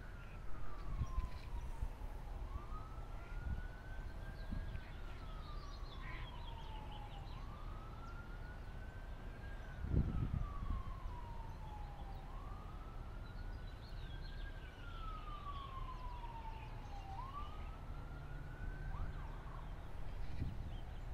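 Faint emergency-vehicle siren in wail mode: a tone that rises and then slowly falls, repeating about every five seconds, over a low rumble. A dull low thump sounds about halfway through.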